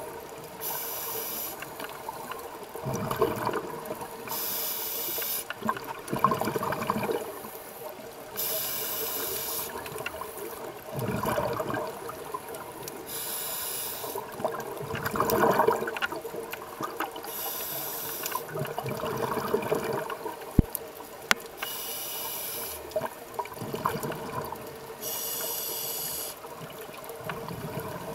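Scuba regulator breathing heard underwater: a hissing inhale through the regulator about every four seconds, each followed by the bubbling rumble of the exhaled air.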